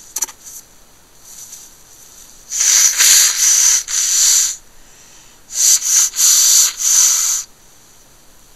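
A person blowing their nose: two runs of short, forceful blows, each about two seconds long, with a pause of about a second between them.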